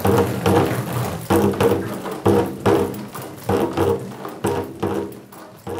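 Water drops falling from drip lines onto hand drum heads, striking in an uneven rhythm of about two or three hits a second. Each hit rings briefly with a low drum tone.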